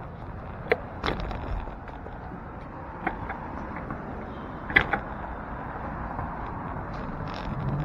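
A bicycle setting off along a city street, with a few sharp clicks and knocks from the bike and its handlebar camera mount over steady traffic noise. Wind on the microphone begins to rumble near the end as the bike picks up speed.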